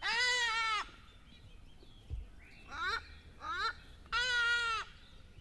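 Goat bleating: two long bleats about four seconds apart, with two short rising cries between them.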